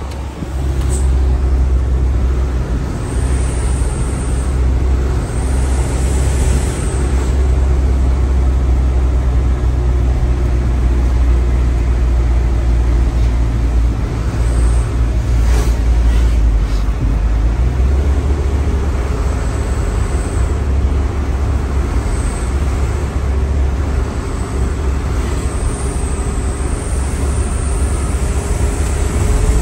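Truck engine running steadily under way, heard from inside the cab as a constant low drone with road noise. Its note changes about two-thirds of the way through, and a few brief clicks sound just before.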